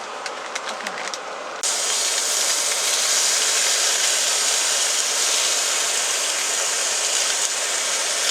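Faint crackling, then a loud steady hiss that sets in suddenly about one and a half seconds in.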